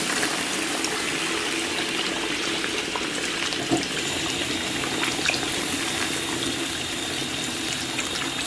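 Wok of scallion, ginger and bean paste sizzling steadily over low heat as light soy sauce is poured in from a bottle, with a couple of faint clicks.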